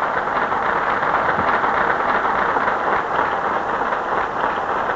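A large auditorium audience applauding steadily, many hands clapping together.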